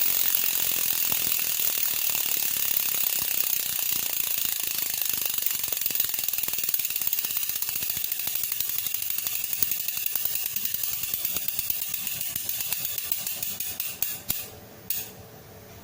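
Hope Pro 2 Evo rear hub freehub clicking rapidly as the wheel spins freely. The clicking slows as the wheel coasts down, ends in a few last separate clicks, and stops near the end.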